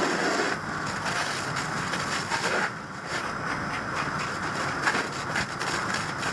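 Fire hose nozzle spraying a straight stream of water into a burning doorway to knock down the fire: a steady rushing hiss.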